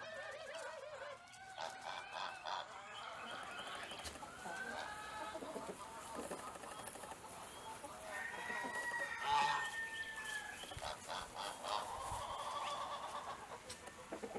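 Chickens clucking and calling, many short calls overlapping, with one longer drawn-out call about two thirds of the way through.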